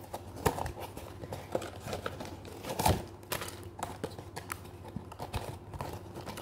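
Cardboard toy box and its inner paper packaging being handled and pulled apart: scattered light clicks, scrapes and crinkles, with a louder knock about three seconds in.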